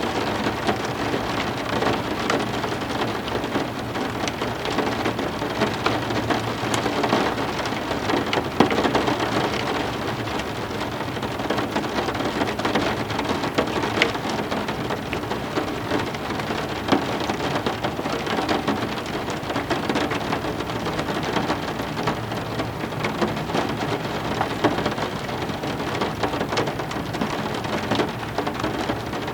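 Steady heavy rain falling on a surface, with many individual drops splashing close by as sharp ticks over an even hiss.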